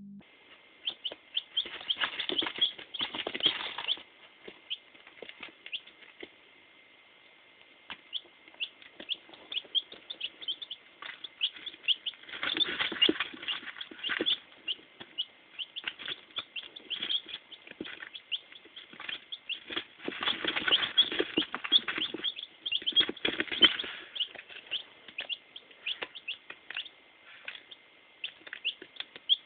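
Newly hatched chicks peeping: a steady stream of short, high cheeps. Three times there is a burst of rustling or flapping among them.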